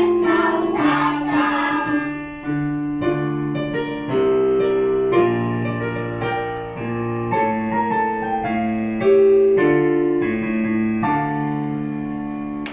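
A song's ending: voices singing for about the first two seconds, then piano playing on alone with sustained chords and a melody.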